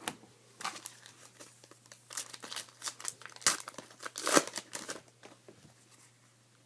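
Foil wrapper of a trading card pack being torn open and crinkled, in irregular crackling rips that are loudest about three and a half and four and a half seconds in.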